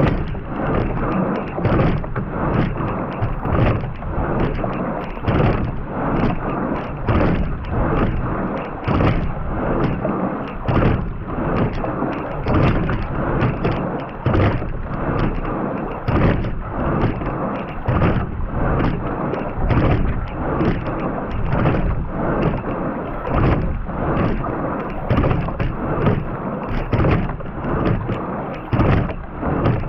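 Quadruple scull rowing at about 33 strokes a minute, heard from a rigger: water rushing and splashing along the hull and oar blades, swelling in loudness with each stroke.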